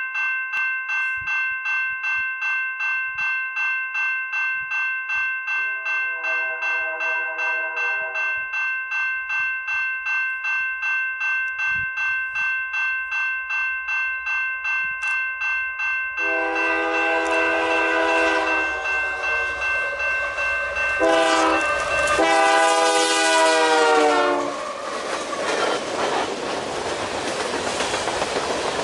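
A grade-crossing bell rings in a steady, rapid rhythm while an approaching Canadian Pacific freight train sounds its horn in the long-long-short-long crossing pattern: first faintly, then loud, the last blast dropping in pitch as the locomotive passes. The bell stops as the horn ends, and the locomotive and loaded covered hopper cars then rumble past.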